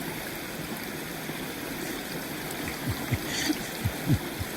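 Water running steadily through a breach in a beaver dam. A handful of short low thumps come in the last second and a half.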